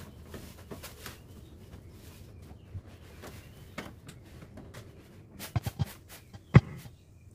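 A Phillips screwdriver backing the casing screws out of a window air conditioner: faint scraping and small ticks of the screwdriver and screws against the casing, then a few sharp clicks near the end.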